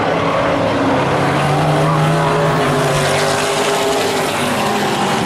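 A pack of vintage modified stock cars racing past, several engines running hard together at speed, loud and steady, with engine pitches shifting as the cars go by.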